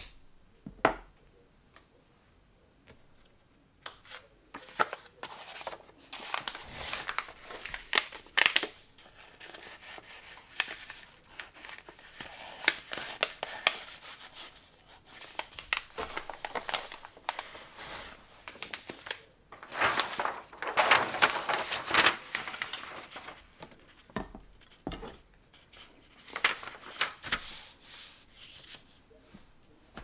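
A snip of scissors through twine, then kraft paper rustling and crinkling with scattered small taps and clicks as a wrapped parcel and paper are handled, loudest about twenty seconds in.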